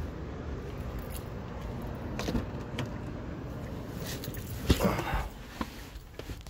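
Keys jangling and handling noise as a person gets into a car, with the car door shutting with a thud about five seconds in.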